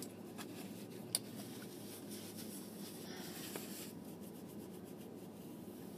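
Faint rustling and rubbing as small objects are handled by hand, with one sharp click about a second in.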